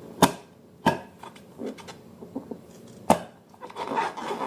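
Three sharp taps, with a few fainter clicks between them, as slime-making utensils and containers are handled; scraping and rubbing of mixing starts again near the end.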